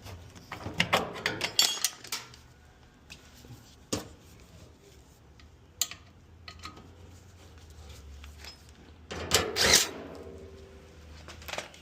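Metal dryer parts and tools being handled during reassembly: a cluster of clattering clicks about a second in, single sharp knocks around the middle, and a louder scraping clatter near the end.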